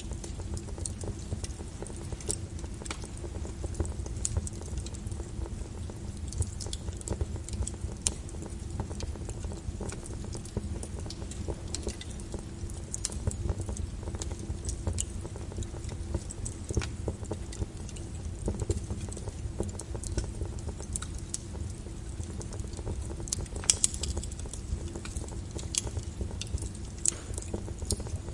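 Fire crackling: irregular sharp snaps and pops over a steady low rumble of brown noise, with a louder cluster of pops about two thirds of the way through.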